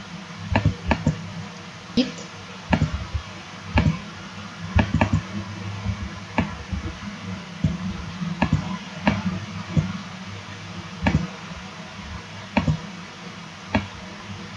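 Computer mouse clicking at irregular intervals, single clicks and quick double clicks, over a steady low hum.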